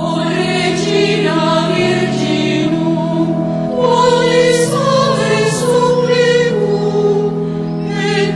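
Choir singing slow sacred music over sustained low chords that change every second or so.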